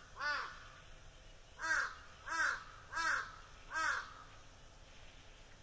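A crow cawing: one caw, then after a pause of about a second a run of four caws at an even pace, stopping about four seconds in.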